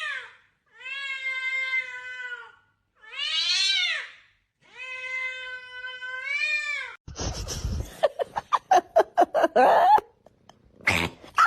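A cat meowing: three long, drawn-out meows, the middle one shorter and rising then falling in pitch. In the last few seconds they give way to a quick run of clicks and knocks.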